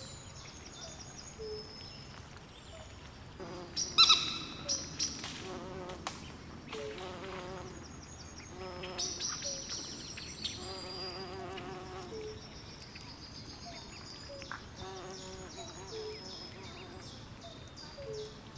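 Night swamp ambience: a chorus of frogs and insects, with many short high chirps and repeated low croaks and trills. A louder call with several notes stands out about four seconds in.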